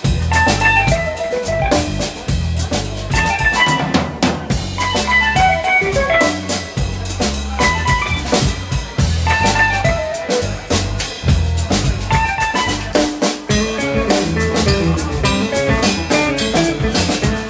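Live instrumental trio: electric guitar playing melodic lead phrases over electric bass and a drum kit with busy, dense drumming.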